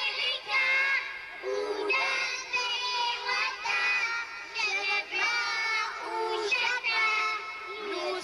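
A group of young children singing a song together into microphones, in short phrases with brief breaths between them.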